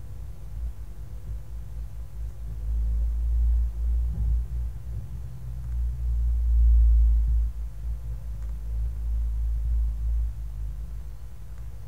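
Low rumble of a vehicle's engine and road noise, heard from inside the cab, swelling louder twice around the middle.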